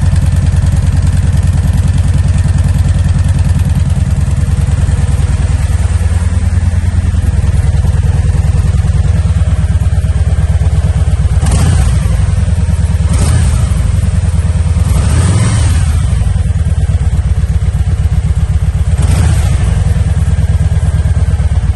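Stock exhaust of a 2011 Kawasaki Vulcan Voyager 1700 V-twin idling steadily just after a cold start. There are a few short throttle blips about halfway through and one more near the end.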